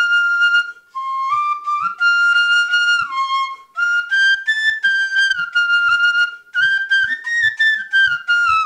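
Instrumental music: a flute melody of held notes stepping up and down, with faint light percussion beneath.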